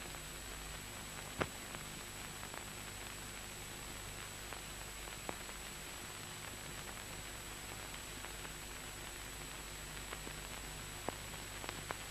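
Background hiss and crackle of an old film soundtrack: a steady hiss with a faint high-pitched whine and low hum, broken by scattered faint clicks and pops. The loudest click comes about a second and a half in.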